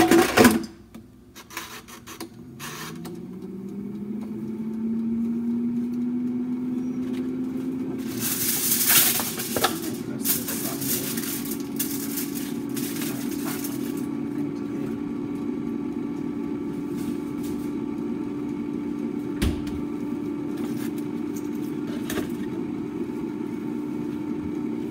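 A kitchen appliance's fan motor spins up, its hum rising in pitch over a few seconds, then runs steadily. A brief burst of handling noise comes about eight to ten seconds in.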